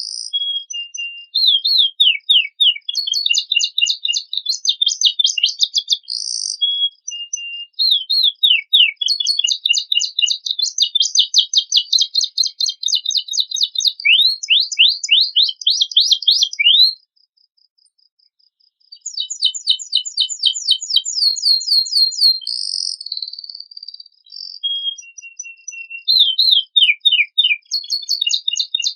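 Canary singing a long, varied song of fast trills and quick downward-sweeping notes, broken by a pause of about two seconds past the middle.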